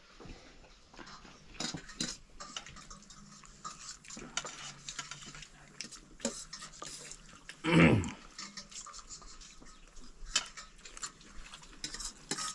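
Spoon and fork clinking and scraping on steel plates as people eat noodles, with noodles being slurped. A brief voice sound about eight seconds in.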